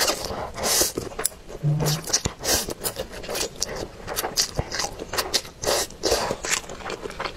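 Close-up mouth sounds of someone eating instant turkey noodles: repeated short slurps and wet chewing, with a few sharp clicks.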